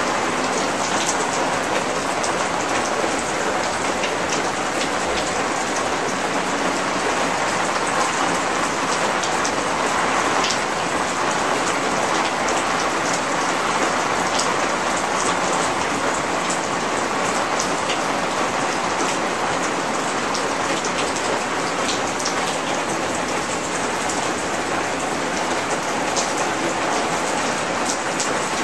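Heavy rain falling steadily on a concrete rooftop terrace, an even hiss with many single drops ticking sharply close by.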